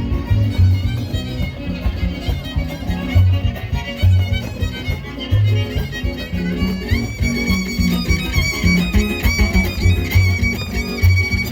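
Son huasteco music: a violin playing a lively melody over a steady strummed rhythm, sliding up about seven seconds in to a high line.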